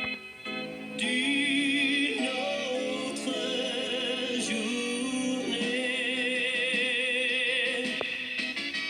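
Recorded song played back from a Sony HF 60 cassette tape: sung vocals with a wide vibrato over instrumental accompaniment, coming in louder about a second in and carrying on.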